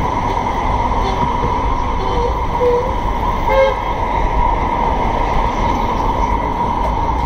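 Steady low rumble of traffic and a busy square, with a short horn toot about three and a half seconds in.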